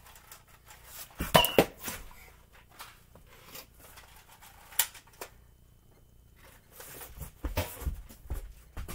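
Scattered knocks and clatters, with a loud cluster about a second and a half in, a single sharp knock near the middle and another cluster near the end.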